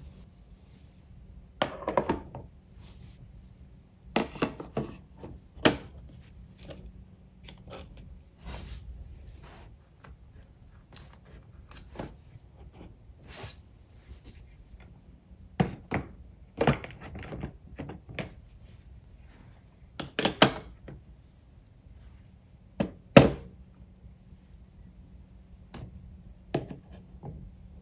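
Clear plastic storage boxes and small objects being set down and shifted on a desk: scattered knocks and clacks, a few sharper ones, with quiet handling noise in between.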